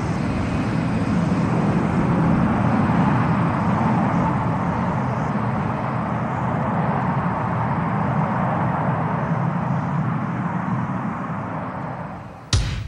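Jet airliner's engines after takeoff, a steady rushing rumble that fades a little near the end as the plane climbs away. A sudden loud burst of music cuts in just before the close.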